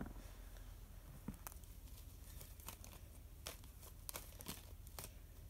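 A deck of tarot cards handled and shuffled by hand: faint, irregular soft clicks and rustles of card against card.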